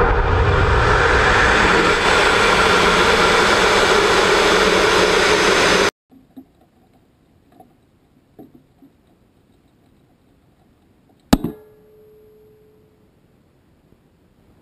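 Solid rocket motor firing at liftoff, heard through a camera mounted on the rocket's outer skin: a loud, steady rush of noise that cuts off suddenly about six seconds in. After it, faint knocks, then one sharp click with a short ringing tone near the end.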